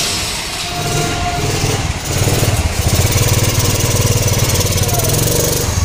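Honda Activa scooter's single-cylinder four-stroke engine running with an abnormal, excessive noise, growing louder about two seconds in. The mechanic suspects a loose air-filter pipe, since the silencer shows no leak.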